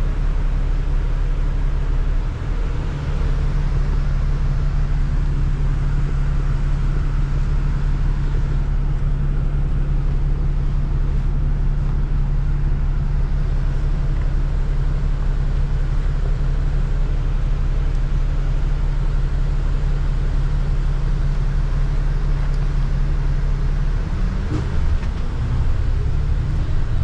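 Double-decker bus running on the road, heard from inside the upper deck: a steady low engine drone with road noise. About 24 seconds in the engine note changes, with a brief rising tone.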